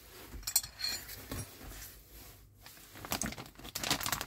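Thin clear plastic bag crinkling and rustling as hands handle and open it. The crackles are scattered at first and grow busier in the second half.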